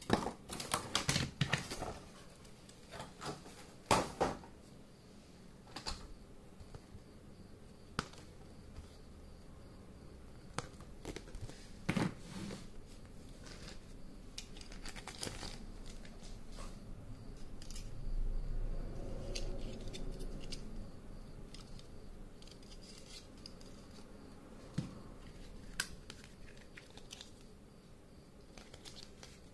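Hard plastic Plarail toy train track pieces clicking and knocking together as they are handled and unpacked, with the rustle of a plastic bag. There are a few sharp clicks in the first dozen seconds and a longer stretch of rustling about two-thirds of the way through.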